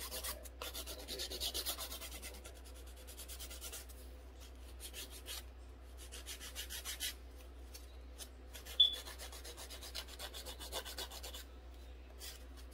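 Hand nail file filing an acrylic nail in quick, faint back-and-forth strokes. A short sharp click comes about nine seconds in.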